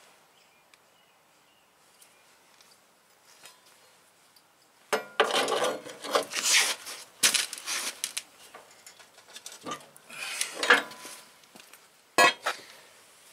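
A claw hammer prying and knocking at the steel roller bracket of a mower deck to bend it back up. Metal scrapes and clanks in quick, irregular bursts from about five seconds in, with a single sharp knock near the end.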